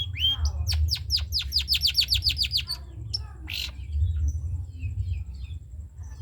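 Long-tailed shrike (cendet) singing in the rapid 'trotol' style: a fast run of short falling-pitch notes, about eight a second, followed by softer scattered chatter, over a steady low hum.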